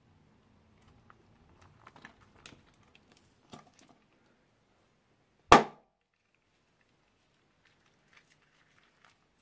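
Faint crinkling and crackling of plastic bags and crunchy slime being handled, then one sharp, loud pop about five and a half seconds in.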